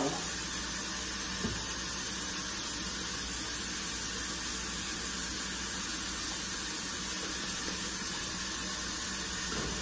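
Food sizzling in a pan on the stove: a steady, even hiss with no breaks.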